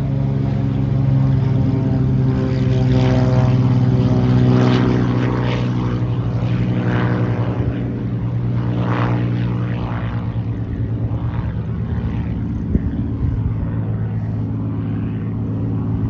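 Single-engine piston propeller airplane taking off at full power and climbing away: a loud, steady engine drone with a rasping propeller noise that swells and fades several times as it passes.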